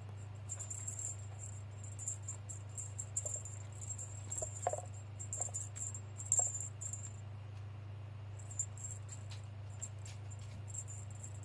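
Light, intermittent rattling and jingling of a kitten's play toy, in irregular bursts, over a steady low hum.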